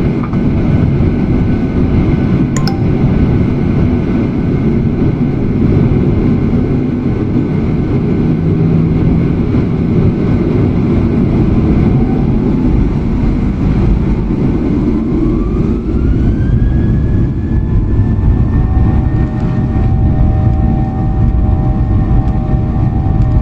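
Airliner cabin noise: a steady low rumble from the turbofan engines. About twelve seconds in, an engine whine rises and levels off some five seconds later as the engines spool up for the takeoff roll.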